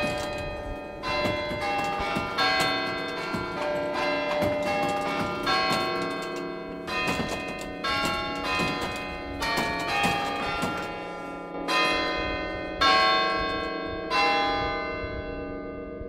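Tower chime bells played as a tune from a wooden lever stand, each lever pulling a cable to a hammer inside a bell: a melody of struck notes, each ringing on under the next. The last notes come about 14 seconds in and are left to ring and fade.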